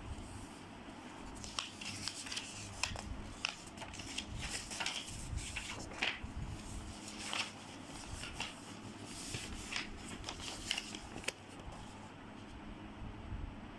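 Printed paper sheets rustling and crinkling as pages are handled and turned by hand, in quick irregular crackles that stop shortly before the end.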